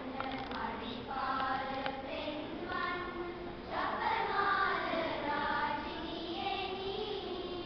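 Children's choir singing, holding long sustained notes.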